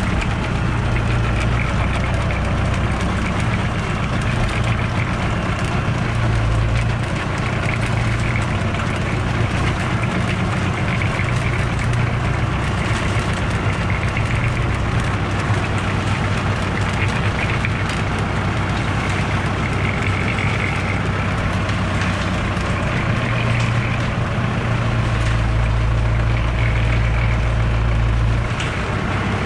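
Tractor engine running steadily as the tractor moves with a cement mixer on its rear linkage, the low drone growing heavier for a few seconds near the end.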